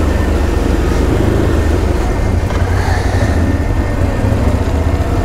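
ATV engine running steadily at low speed under way, a constant low drone with a hiss of wind and terrain noise over it.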